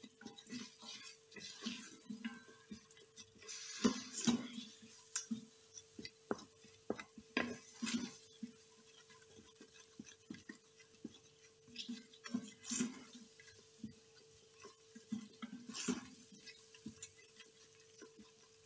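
Wooden spoon scraping and knocking against a stainless steel pot while stirring a spice paste frying in oil, in scattered short strokes. A faint steady hum runs underneath.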